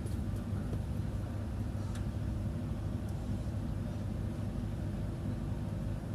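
Steady low drone of a ferry's engines heard from inside the ship, with a few faint clicks.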